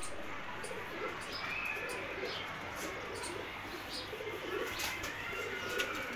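Teddy pigeons cooing over and over in low, rolling coos.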